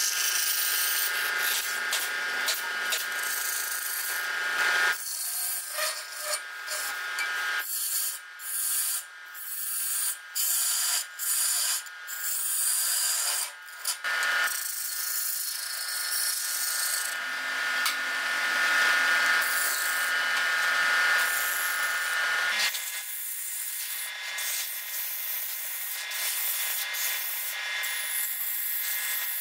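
Wood lathe running with a steady whine while a turning gouge cuts into the spinning wooden blank, throwing off shavings in a rasping hiss; the cut breaks off and resumes several times.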